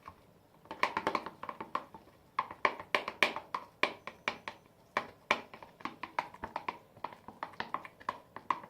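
Stirring a sticky homemade slime mixture of washing-up liquid, toothpaste, face wash and shaving cream, the utensil clicking and tapping against the container in a quick, uneven run of about three clicks a second.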